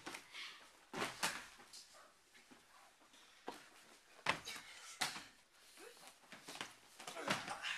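Irregular thumps and scuffs of children tumbling and spinning on plastic-covered gym mats: about half a dozen sharp knocks a second or more apart, with short scraping noises between them.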